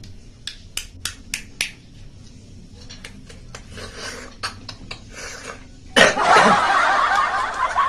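Freshwater snails in sinigang broth being eaten by hand: a quick run of sharp clicks about half a second in, then a loud, long slurp near the end as snail meat is sucked from the shell.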